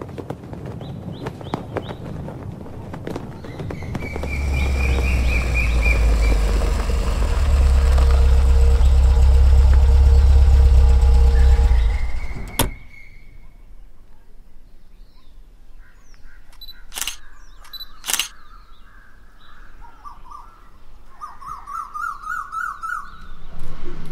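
Typewriter-style key clicks as the title types out, then a car engine's low rumble running for several seconds with birds chirping. After a sudden cut, birds call and trill in quieter open air, with two sharp knocks like a car door about two-thirds of the way through.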